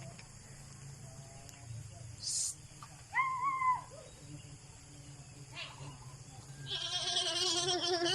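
Goats bleating on a farm: one short call about three seconds in, then a loud, quavering bleat starting near the end.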